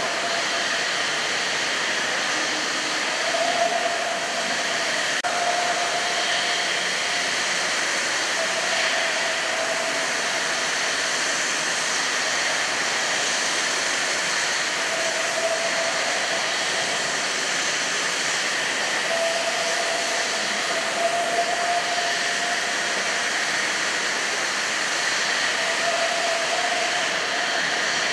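1963 Droop & Rein D 175 v horizontal boring and milling machine running steadily, a constant hissing machine noise with a mid-pitched hum that comes and goes several times.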